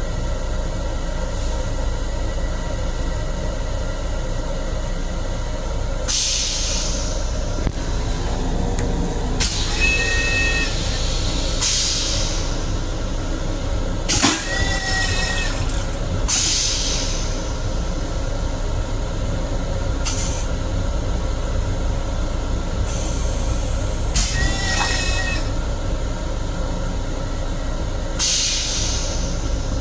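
MTA Long Island Rail Road M7 electric railcar running, heard inside its restroom: a steady low rumble with steady tones. Short bursts of hiss come every few seconds, and three of them carry a brief high squeal.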